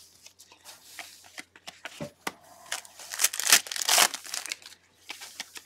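Foil wrappers of Panini Prizm basketball card packs crinkling and tearing as gloved hands rip them open. A few rustling bursts, the loudest about three to four seconds in.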